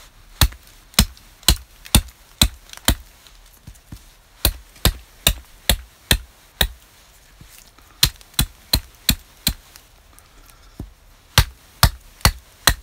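Hatchet striking split wood held upright on a log chopping block while carving feather sticks: sharp woody knocks about two a second, in four short runs with pauses between.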